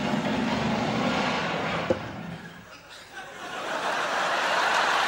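Theatre audience laughing, the laughter dying away about two seconds in, then applause building up through the last couple of seconds.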